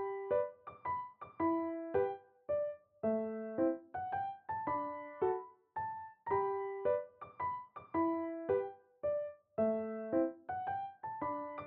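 Background piano music: a slow, gentle melody of single struck notes, each sounding sharply and then fading away.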